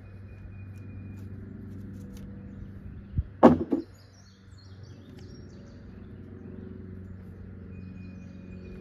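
A brief clatter of hand tools against metal in an engine bay: a few sharp knocks close together about three and a half seconds in, over a steady low hum. Faint bird chirps follow shortly after.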